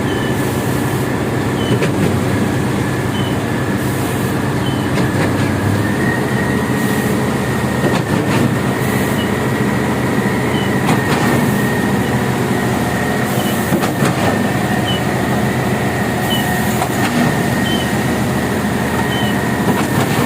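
Heavy diesel concrete-pumping machinery, a concrete pump and transit mixer, running steadily under load during a concrete pour, with a faint knock every few seconds.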